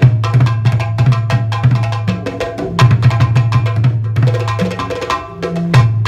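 Drumming: hand drums struck in a fast, busy rhythm over deep, held pitched notes that change every second or so, dipping briefly near the end.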